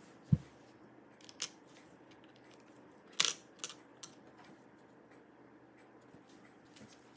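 A plastic pry tool clicking against a laptop's metal M.2 slot cover plate as the plate is pried off: a handful of short sharp clicks and taps, the loudest about three seconds in.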